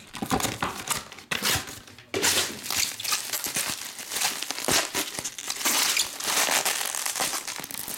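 Plastic bubble wrap crinkling and rustling as hands unwrap it, a few separate crinkles at first, then dense and continuous from about two seconds in.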